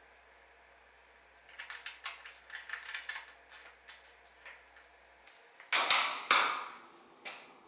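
Hands working on motorcycle parts. After a quiet start there is a quick run of light clicks and taps, then two louder knocks about six seconds in, each with a short ring-off, and one more light click near the end.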